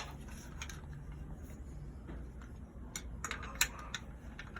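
A few light, sharp clicks and taps of small seatbelt retractor parts being handled, most of them close together near the end, over a low steady hum.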